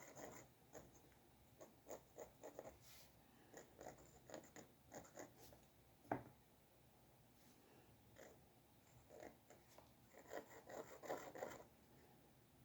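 Faint scratching strokes of a drawing tool on paper, coming in short clusters with pauses between, and one sharper tap about six seconds in.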